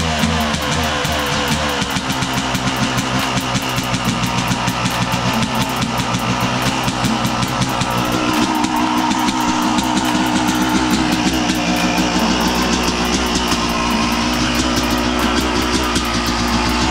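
Rock music with guitar and drums, laid over the Yamaha YZ250's two-stroke engine running after being kick-started.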